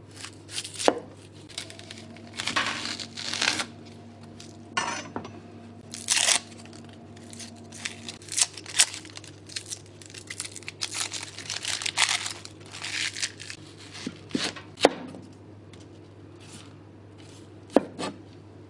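A chef's knife cutting through a yellow onion on a plastic cutting board, with several sharp knocks as the blade meets the board. The dry, papery onion skin is peeled off by hand between the cuts.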